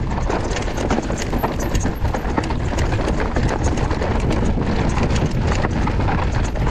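Mountain bike rolling down a rocky trail: a dense, irregular clatter of tyres and frame over stones, over a steady low rumble.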